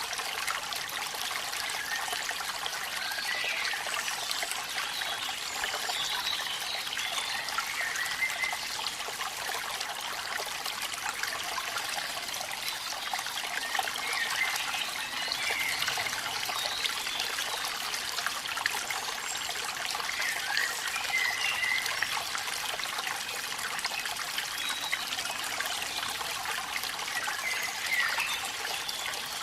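Steady rush of rain and a waterfall, an even hiss of falling water with short higher trickling notes coming and going every few seconds.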